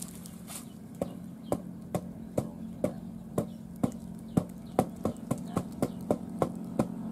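Rubber flip-flop slapping rhythmically as it is flapped to fan a small cooking fire under a coffee pot, about two to three slaps a second, getting quicker after the middle, over a steady low hum.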